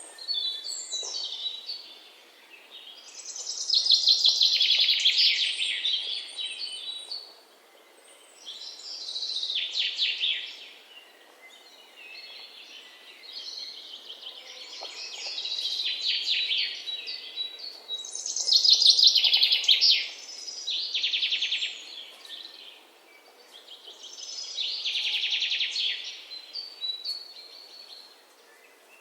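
Birdsong: a bird singing repeated trilled phrases, each swelling for one to three seconds and coming again every few seconds.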